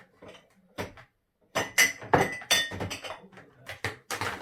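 Dishes and glassware clinking and knocking against each other and the rack as they are loaded into a dishwasher: one knock about a second in, then a quick run of clinks, some with a short ringing note.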